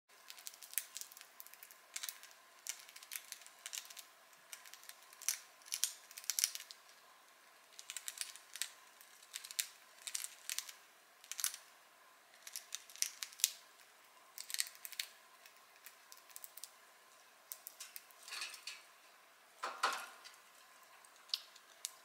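Budgies nibbling at a piece of sourdough toast with their beaks: quiet, crisp crunching and clicking in irregular little runs. There is one duller, lower sound about two seconds before the end.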